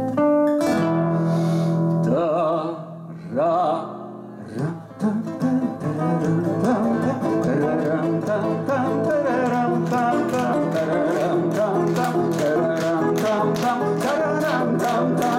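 Two acoustic guitars playing an instrumental passage. Held, wavering notes ring over a sustained low note for the first few seconds, with a short quieter gap around three to four seconds in. From about five seconds in, steady rhythmic strumming and picking starts, with sharp, evenly spaced beats growing stronger from about ten seconds in.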